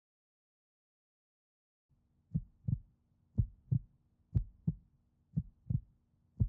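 Heartbeat sound effect: after about two seconds of silence, a steady lub-dub of paired low thumps, about one pair a second.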